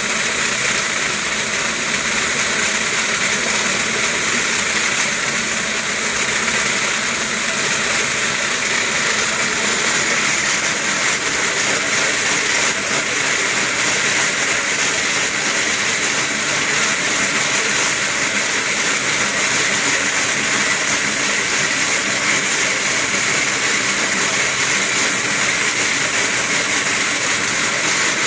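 Wooden dog slat mill running steadily under a trotting dog, an even, unbroken rattling hiss of the turning slats.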